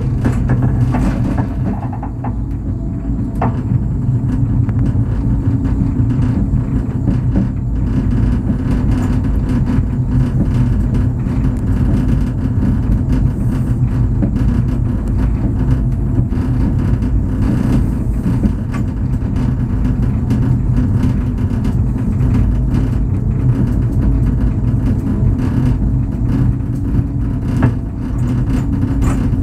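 Steady low rumble inside the moving cabin of the Dallenwil–Wiesenberg aerial cableway, its carriage running up the track rope at speed, with a few faint knocks.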